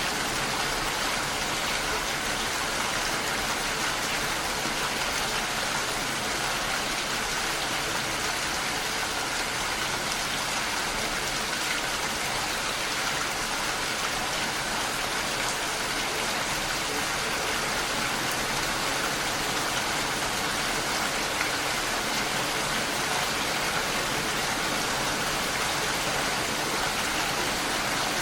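Steady rain falling, an even hiss of drops with no let-up or change in strength.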